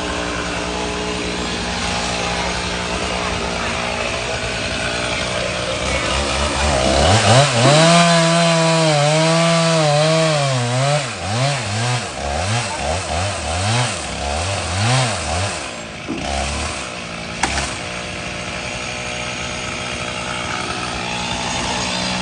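Chainsaw revved up and cutting into wood for several seconds, its pitch dipping and recovering again and again as the chain loads in the cut, then turning choppy before it drops back to a steady idle-like hum.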